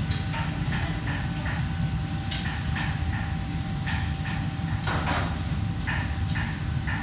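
Kitchen clatter: metal trays, bowls and utensils knocking against steel counters at irregular intervals, the loudest about five seconds in, over a steady low hum.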